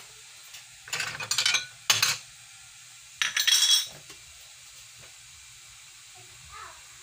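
Kitchen utensils and dishes being handled: three short bursts of clattering and scraping in the first four seconds, the middle one ending in a sharp knock.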